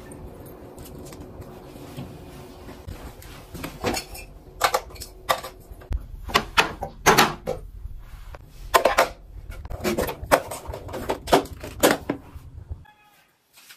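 Faint steady hum, then from about four seconds in a run of sharp clicks and knocks: small household items being handled and set down, including bottles in a plastic organizer tray and a hair dryer pushed into a wall holder. It goes nearly quiet just before the end.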